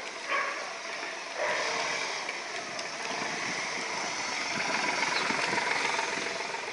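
Car engine and road noise while driving, a steady rushing hum that grows louder about a second and a half in.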